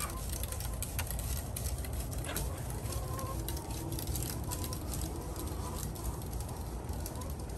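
Leaf rake tines scratching along a pig's bristly back: a soft, crackly rasping, over a steady low rumble.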